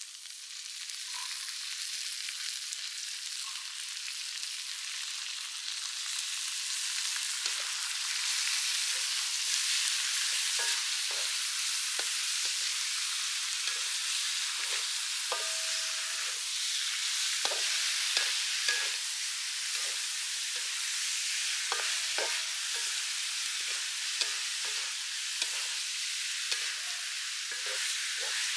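Frog meat sizzling as it fries in a metal wok, with a wooden spatula scraping and knocking against the pan as it is stirred. The sizzle grows louder over the first several seconds, and the scraping starts after about seven seconds.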